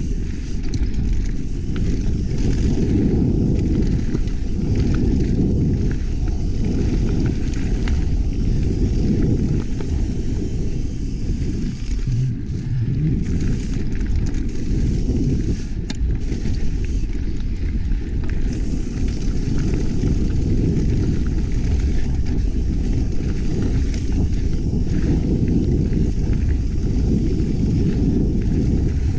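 Mountain bike riding down a dirt trail: a steady low rush of wind on the action camera's microphone and tyre rumble, with scattered small rattles and clicks.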